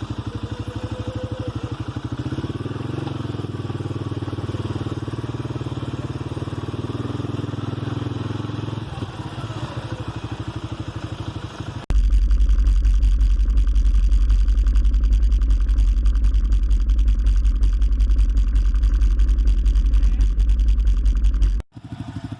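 Quad bike engine running, with a rapid even firing pulse. About halfway through, the sound switches abruptly to a much louder, deep rumble, which cuts off suddenly shortly before the end.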